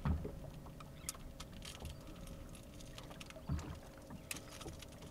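Faint scattered clicks and light taps of hands working a hooked fish and a treble-hooked lure on a boat deck, with a few short low thumps, the loudest about three and a half seconds in.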